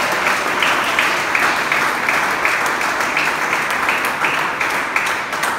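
Church congregation applauding after a shouted "hallelujah", with clapping that falls into a steady beat of about three claps a second.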